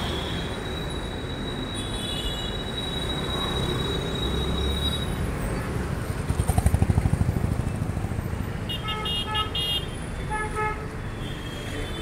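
Busy city street traffic with a steady rumble of engines. Halfway through, a vehicle passes close with a rapid throbbing engine, and near the end a vehicle horn sounds in a run of short beeps. A thin high steady tone runs through the first half.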